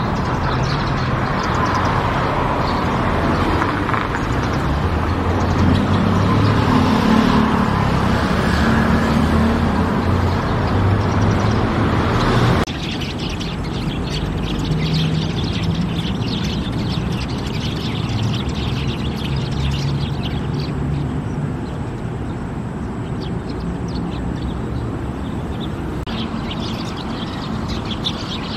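A flock of Eurasian tree sparrows chirping, many short overlapping calls, over a steady low rumble. The sound changes abruptly about halfway through: the rumble is heavier before, and the chirps stand out more after.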